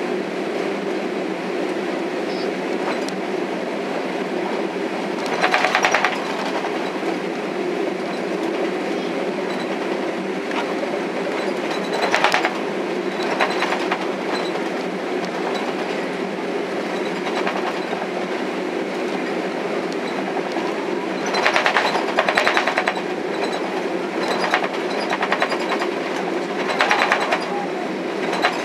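Cabin noise inside a Boeing 767-300 taxiing on the ground: a steady engine and airflow hum, with short rattles several times as the airliner rolls along the taxiway.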